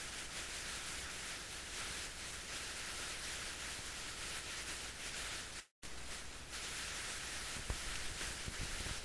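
Steady recording hiss with no other sound, stronger in the high range, cutting out completely for a split second a little past halfway.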